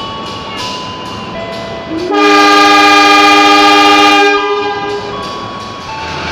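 A diesel locomotive's horn sounds one long chord of about two seconds as the train pulls into the station on the next track, over the rumble of the train.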